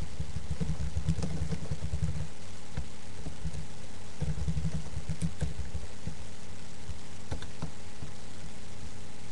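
Typing on a laptop keyboard, picked up by the built-in microphone as dense low thumps in two spells with a few sharper clicks after, over a steady electrical hum.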